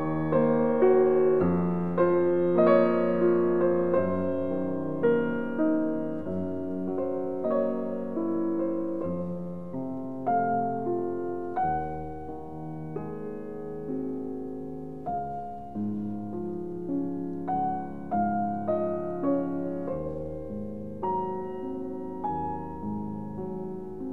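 Slow solo piano music, notes and chords struck about once a second and left to ring.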